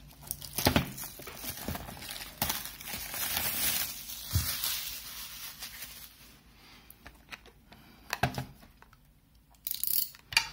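Plastic wrapping on a cardboard model-train box crinkling and tearing as it is slit and peeled off, with scattered taps and clicks from handling the box. The rustling is busiest a couple of seconds in.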